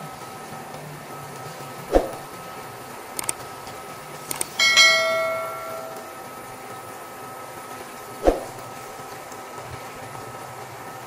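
Spatula knocking against a stainless steel pot twice while greens are stirred. About four seconds in, a few clicks lead into a bright bell-like chime that rings out and fades over about a second: the sound effect of a subscribe-button animation with a notification bell. A faint steady whine runs underneath.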